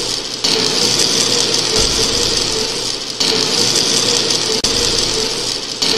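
A steady machine-like whirring hum from an intro sound effect, with a brief dip in level every second and a half or so.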